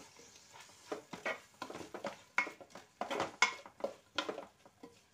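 Wooden spoon stirring vegetables and sauce in a metal pot, with irregular scrapes and knocks against the pot's sides.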